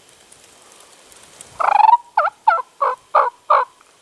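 Wild turkey calling: one longer rolling note, then five short notes in quick, even succession, loud against a quiet background.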